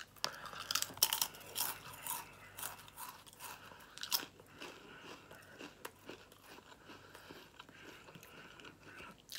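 A person biting into a large crisp and chewing it with many sharp crunches, loudest over the first four seconds or so, then softer chewing.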